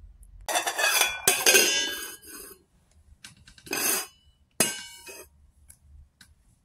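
Stainless-steel pan being handled on a hard surface: metallic clanks and scrapes with a short ring. A long clattering stretch starts about half a second in, followed by two shorter clanks around four and five seconds in.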